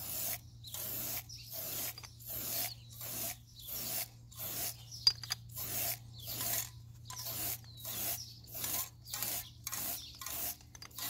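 Aerosol spray-paint can sprayed in short repeated bursts, about three every two seconds, as brushed-nickel color is put on door knobs.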